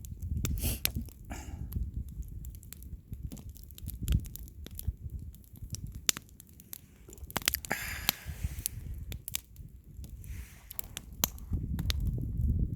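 Campfire crackling, with scattered sharp pops over a low rumble. A brief hiss comes about eight seconds in.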